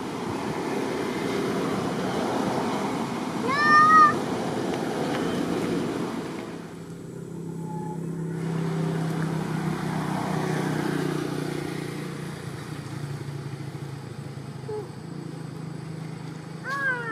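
Macaque giving short, high, slightly rising squealing calls, a quick cluster about four seconds in and another near the end, over steady background noise.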